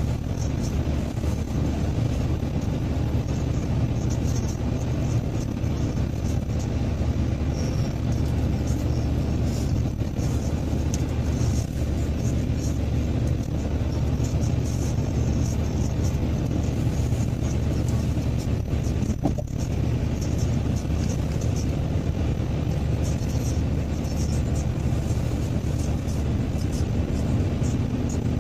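Steady low drone of a car cruising at constant speed, mostly tyre and engine rumble heard from inside the car.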